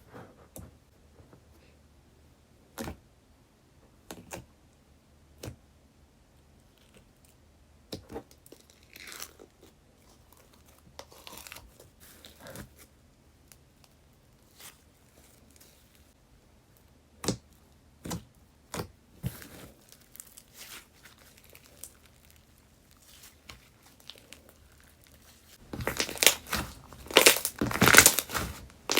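Slime being handled: scattered small clicks and pops, then near the end a dense, loud run of crackling and crunching.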